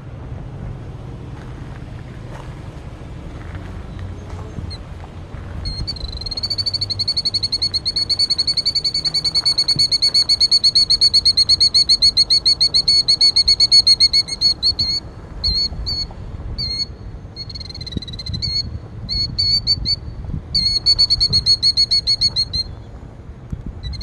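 Killdeer giving its rapid trilling alarm call, a fast high rattle that starts about six seconds in and breaks into shorter bursts in the second half: the distress call of a parent bird defending its ground nest.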